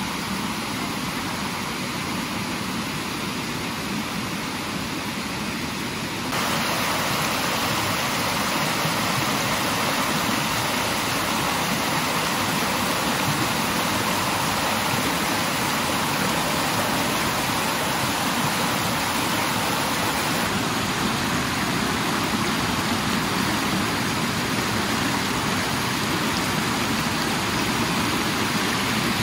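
Spring water from Mt. Yotei rushing and splashing along a stream, a steady rushing noise that gets louder about six seconds in.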